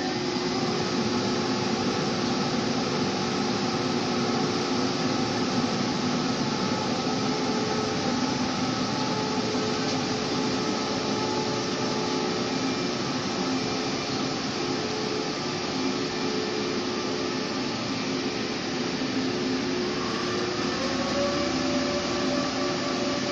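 A TRA E1000 push-pull Tze-Chiang Limited Express pulling out of the station: a steady hiss of running gear under several whining tones. One of the tones rises in pitch about 20 seconds in as the train picks up speed.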